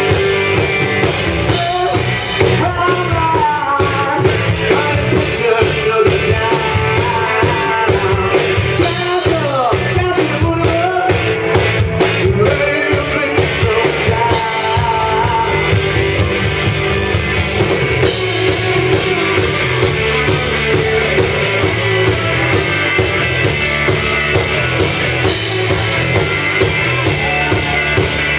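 Live rock band playing loud and steady: electric guitars, bass and a pounding drum kit, with a male singer's voice over them.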